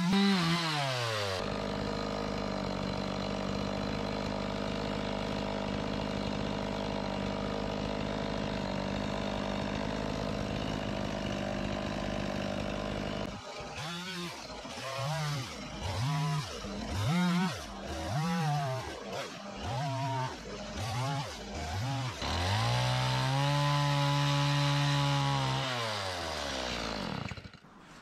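Stihl two-stroke chainsaw running at steady high revs for about twelve seconds, cutting through a wood block. It is then revved up and down in about eight short bursts, held at high revs for a few seconds, and winds down and stops shortly before the end.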